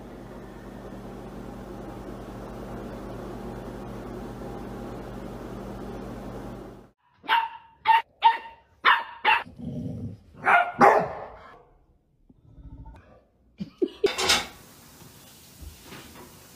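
A dog barking: a quick run of about five sharp barks, then a couple of longer barks and another near the end. Before them, a steady low hum.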